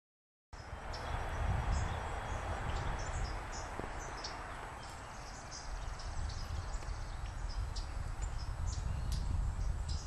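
Outdoor field ambience beginning about half a second in: a steady low rumble of wind noise, with many short, high chirps of small songbirds in the background.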